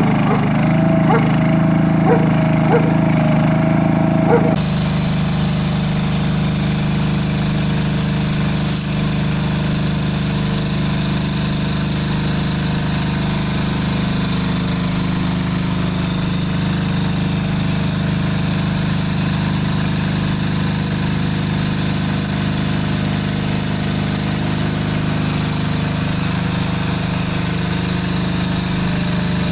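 Engine of a ride-on paving-joint weed cleaning machine running steadily as it drives its rotating tine head through the weeds between paving stones. The sound changes abruptly about four and a half seconds in, then holds a steady engine hum.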